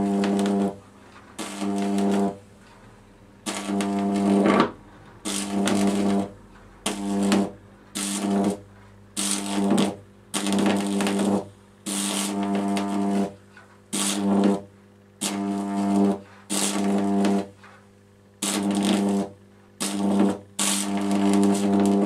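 High-voltage arc from a microwave oven transformer burning into an orange, making a loud harsh buzz. It comes in repeated bursts of a second or less, about one a second, as the arc strikes, wanders and breaks.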